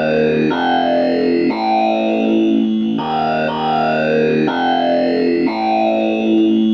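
Modular synthesizer patch through a switched-resistor voltage-controlled filter, its clock running at audio rate, which gives vowel-like formant sounds. Two ramp-wave oscillators are stepped by a sequencer through a short run of notes, changing about once a second. An envelope sweeps the filter on each note, so the vowel colour glides up or down within it.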